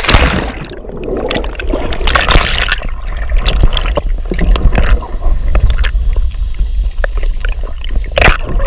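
A sharp splash as a person goes into the water beside a kayak, followed by continuous gurgling and sloshing water with many small crackles over a steady low rumble.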